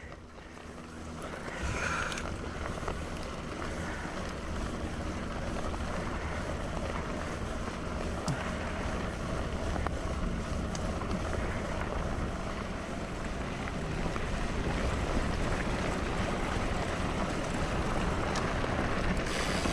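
Steady rushing noise of wind on the microphone of a moving electric mountain bike, with a low rumble beneath it. It is quieter for the first two seconds.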